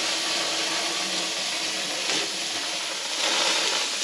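Marron (freshwater crayfish) basted in garlic butter sizzling face down on the hot grill plate of a gas barbecue, a steady hiss that swells briefly about three seconds in.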